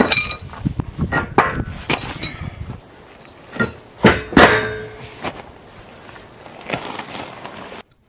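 Clanks and knocks from a steel-rimmed wheel and tyre being handled and moved around on gravel, after it has come off the log arch. There is a short metallic ring right at the start and the loudest knocks come about four seconds in, with the sound cutting off abruptly near the end.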